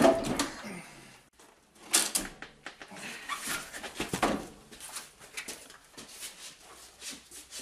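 A Citroën DS gearbox being manhandled out of the car by two people: irregular scraping and metal knocks, a sharp knock about two seconds in and another about four seconds in, with strained grunts and heavy breathing from the men lifting it.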